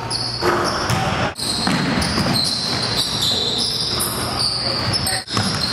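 Basketball game sounds on a hardwood gym court: the ball bouncing, sneakers on the floor and players' voices. The sound drops out briefly twice, at edits between clips.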